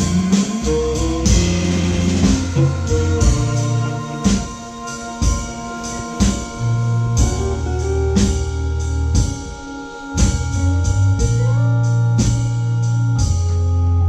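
Hammond organ holding long chords in a blues instrumental, with a drum kit keeping time.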